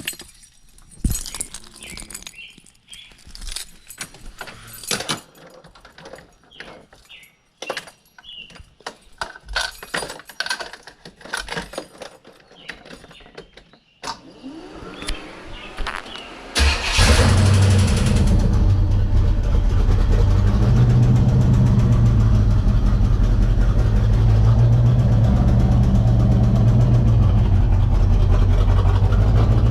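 Scattered clicks and knocks of handling for about the first half, then the 1985 Corvette's 350 TPI V8 cranks briefly and catches a little past halfway, settling into a loud, steady run with a low rumble; it is the first start after a Hypertech performance chip was fitted.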